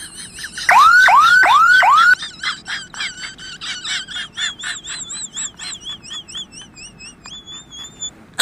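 Car alarm siren: four loud rising whoops, then a fast warbling chirp that gradually fades.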